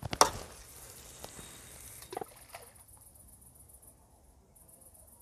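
Feeder fishing rod cast in which the rod snaps: a sharp crack right at the start, then line hissing off the reel for a couple of seconds and a single splash about two seconds in. Crickets chirp faintly throughout.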